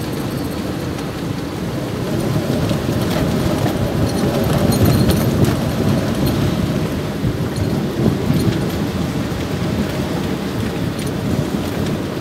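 Storm-force wind buffeting the microphone with rain, a loud, steady rumble with rougher gusts around the middle.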